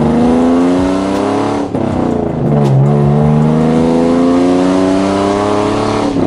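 Hyundai Genesis Coupe's 3.8-litre V6, straight-piped with headers, test pipes and no mufflers or resonators, pulling hard under acceleration as heard from inside the cabin. The engine pitch climbs, falls back briefly about a second and a half in as it shifts up, then climbs again until another shift near the end.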